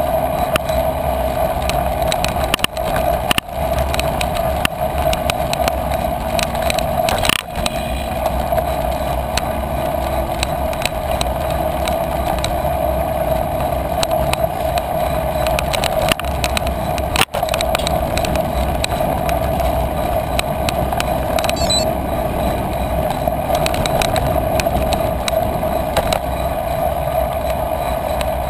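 A bicycle rolling along a rough grass and dirt trail. Steady tyre and riding noise with a constant hum, broken by frequent knocks and rattles as the bike goes over bumps.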